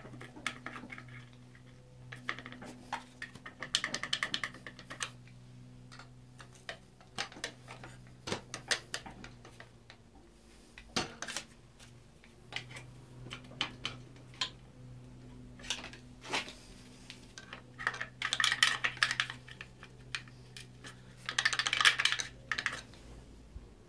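Crankshaft pulley (vibration damper) of a BMW inline-six being wiggled and tugged on its hub by hand: repeated metallic clicks and several bursts of rattling. The damper is stuck and coming off slowly. A steady low hum runs behind and drops out for a couple of seconds near the middle.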